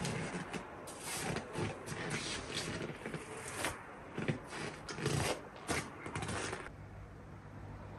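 Footsteps crunching in deep, hard-frozen snow at about −39 °C, an irregular run of crunches that stops short about two-thirds of the way through.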